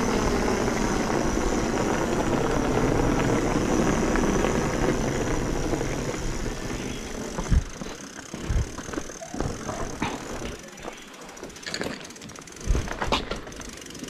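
Mountain bike rolling downhill on a rough concrete lane: a steady rush of wind and tyre noise. It eases off after about seven seconds as the bike slows, leaving a quieter roll broken by a few sharp knocks and rattles from the bike going over bumps.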